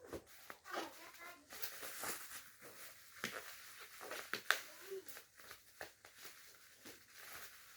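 Packaging being handled and unwrapped: rustling plastic wrap with scattered sharp crackles and clicks.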